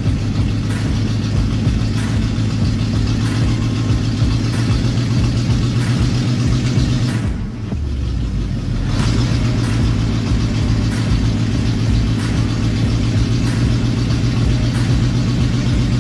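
Engine of a lifted squarebody Chevrolet Suburban running as the truck creeps its front tyre up onto a stack of cinder blocks. The engine drops off briefly about halfway through, then picks back up.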